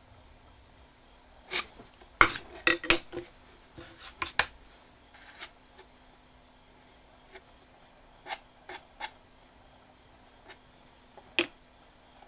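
Sharp clicks and light knocks from a wooden spatula and a lacquered wooden box being handled on a workbench. A quick flurry of them comes about a second and a half in, followed by scattered single clicks as the box is lifted and turned.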